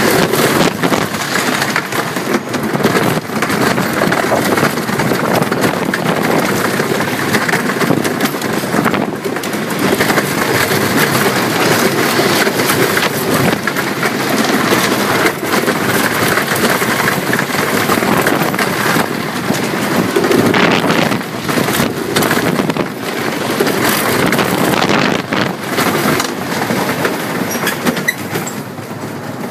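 Philadelphia Toboggan Company wooden roller coaster train running along its wooden track, its wheels rattling and clattering steadily. The sound drops a little near the end as the train comes back toward the station.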